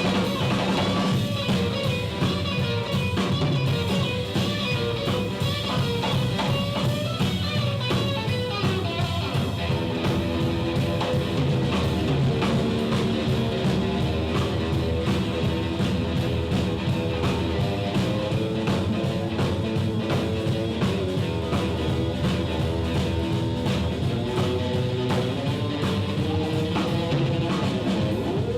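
A live blues band playing an instrumental break: guitar lines over a steady beat from drum kit and double bass, with long, bending guitar notes from about ten seconds in.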